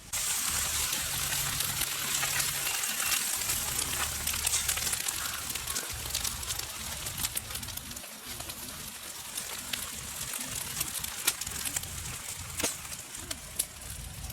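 Food frying in a hot pan: a sizzle that starts suddenly and slowly fades, with scattered pops and crackles.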